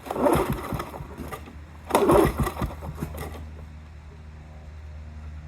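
1987 Lawn-Boy 8073B two-stroke mower engine being pull-started: two short pulls of the starter cord about two seconds apart, the engine hard to start. A low steady hum follows the second pull.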